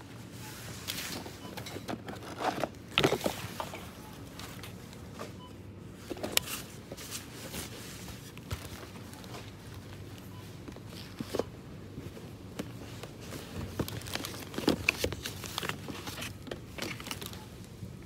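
Supermarket ambience: a steady low hum under scattered clicks, knocks and rustles, with footsteps. The loudest knocks come about three seconds in and again about fifteen seconds in.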